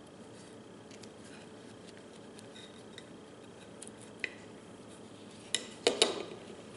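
A knife scraping and cutting flesh from shark jaws on a plate, with faint scrapes and small ticks. There is a sharp click about four seconds in, then the knife clatters down onto the plate in a few loud clacks near the end.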